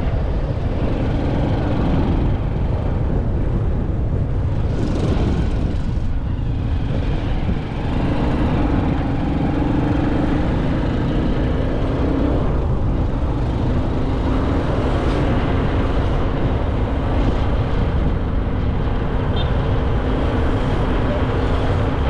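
Motorcycle engine running at a steady speed while riding, with heavy wind rumble on the microphone.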